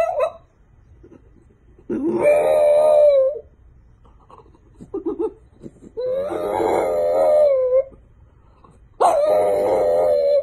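A dog howling: three long howls, each one and a half to two seconds, holding a steady pitch. The first slides up before it levels off.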